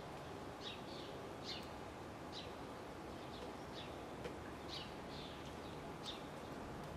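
Short, high bird chirps, about nine in a few seconds at uneven intervals, over a steady faint background hiss and rumble.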